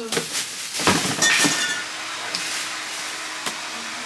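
A few knocks and rustles as boxed items and packaging are handled and set down, one with a brief faint ring, in the first second and a half, followed by a quieter stretch with a faint steady hum.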